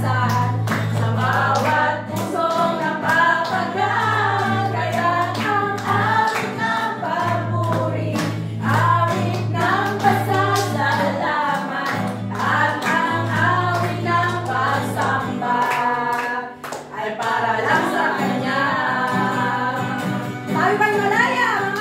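Women singing a praise and worship song together to a strummed acoustic guitar, with hand clapping in time.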